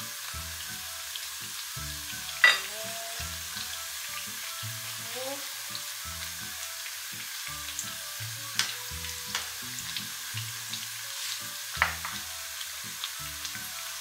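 Batter-coated banana fritters deep-frying in oil with a steady sizzle. Sharp clicks of the utensils against the pan come about two and a half, eight and a half and twelve seconds in.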